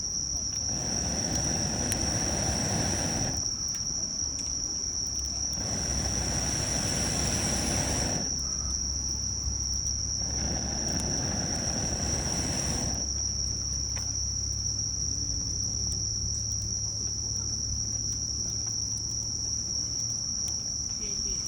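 Insects trilling steadily at a high, unbroken pitch, with three rushes of hissing noise, each about two and a half seconds long, in the first half.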